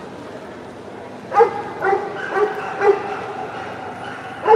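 A dog barking in a steady run, about two barks a second, starting a little over a second in; after a short pause the barking picks up again at the very end.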